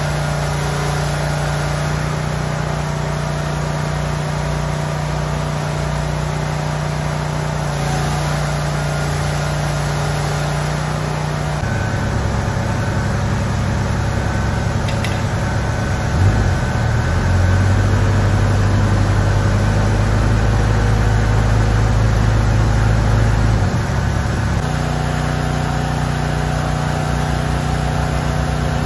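An engine running steadily. Its low note shifts to a new level about twelve seconds in, again around sixteen seconds, and drops back near twenty-four seconds.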